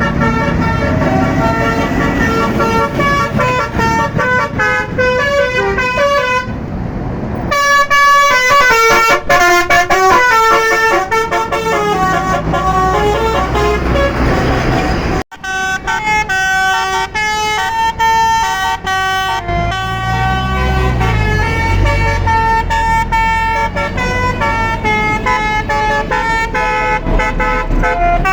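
Tour bus basuri telolet horns on roof-mounted trumpets play quick melodic tunes, note after note in rapid steps, with a sudden break about halfway. A bus engine rumbles underneath near the middle.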